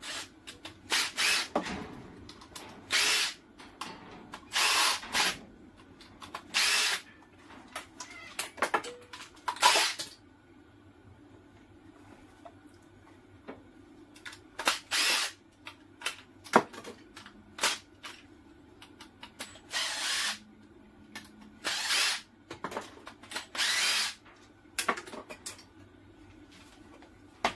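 Cordless drill-driver with a T10 security Torx bit running in many short bursts, backing the screws out of a DeWalt tool battery pack's plastic case, with a pause of a few seconds near the middle.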